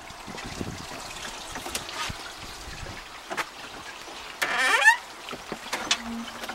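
Wooden summer-house door creaking open on its hinges: one short squeak rising in pitch, about half a second long, a little past the middle. A few light knocks and steps on wooden decking around it.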